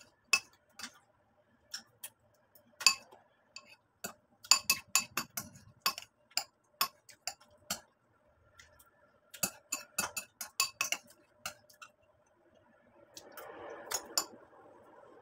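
A spoon clinking and scraping against a glazed ceramic bowl of cornflakes and milk: quick, irregular sharp taps, some in clusters. A short stretch of soft noise comes near the end.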